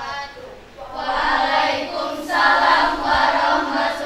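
A group of young voices singing together in unison, swelling in about a second in.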